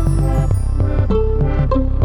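Background music: quick plucked string notes over a steady bass and a light beat.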